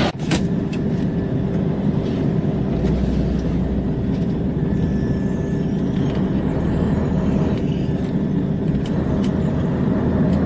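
Scania 144L truck's V8 diesel engine running steadily under way, heard from inside the cab along with road noise.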